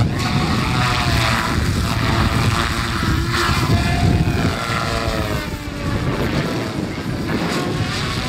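Goblin radio-controlled helicopter flying 3D aerobatics: its rotor and drive whine steadily, the pitch gliding up and down in wavering sweeps as it manoeuvres.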